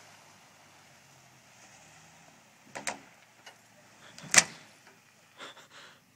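Faint engine hum from vehicles in a recovery tow, broken by a few sharp knocks. The loudest, a single sharp crack, comes a little past the middle.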